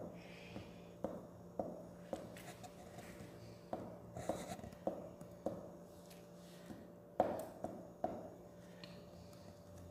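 A glue stick rubbing on paper cutouts and paper being handled on a tabletop: scattered light taps and scrapes, the sharpest about seven seconds in, over a steady low hum.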